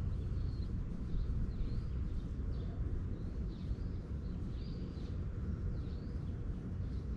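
Small birds chirping, short high calls repeated about once a second, over a steady low rumble.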